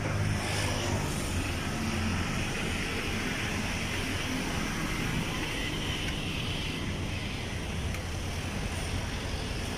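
Street traffic noise: a steady low rumble with a hiss over it, without distinct events.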